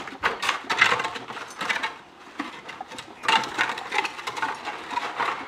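Iron crowbars and shovels striking and scraping broken rock and gravel: a rapid run of sharp clinks and knocks, in two spells with a short lull about two seconds in.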